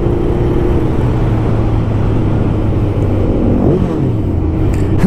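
Suzuki GSX1000 K2 sportbike's inline-four engine running at steady riding revs under the rush of wind and road noise, its pitch dipping briefly and climbing again about three and a half seconds in.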